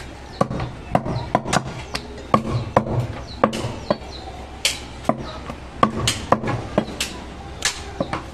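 A butcher's knife chopping goat meat on a wooden block: a run of sharp, irregular chops, about two to three a second.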